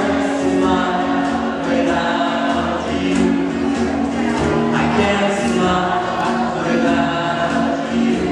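A man singing live into a handheld microphone over accompanying music, with long held notes and choir-like backing voices.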